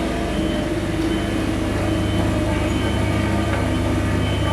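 Diesel engine of a heavy road-works machine running steadily, a low rumble with a fast even throb.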